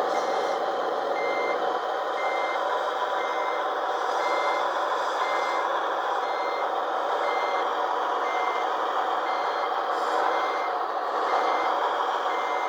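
Sound module of a 1/16 RC armored D9R bulldozer playing a steady diesel engine run together with a reversing beeper, about one beep a second.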